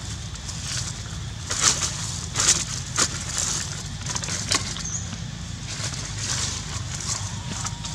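Irregular crunching and crackling of dry leaf litter, a few sharp crackles loudest between about one and a half and three seconds in, over a steady low rumble.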